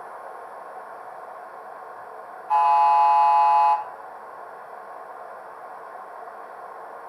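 1938 London tube stock train whistle sounding one blast of about a second, a chord of several steady tones, over a steady background hiss. Here it is played back through a DCC model-railway sound chip.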